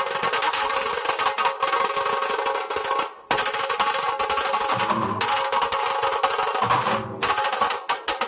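Nashik dhol drum group beating large barrel drums with sticks in a fast, dense rhythm, with a short break about three seconds in.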